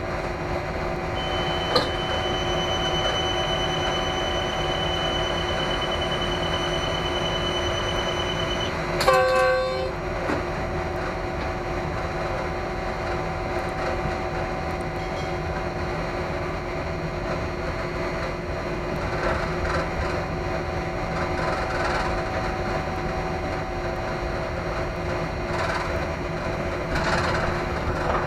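Passenger train running on the track with a steady rumble. A short, loud horn blast sounds about nine seconds in.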